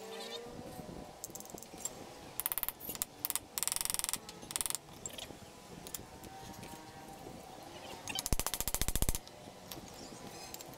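Rapid ratchet-like mechanical clicking in several short bursts, with the loudest and longest burst near the end.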